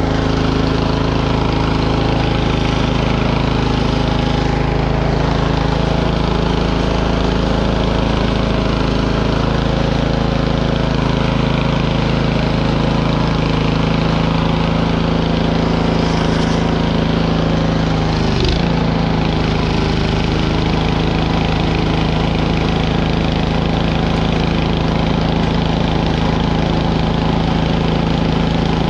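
Biltema CST 7113 snowblower's Loncin 375 cc single-cylinder four-stroke engine running steadily as the machine is walked across gravel. There is a short click about two-thirds of the way through.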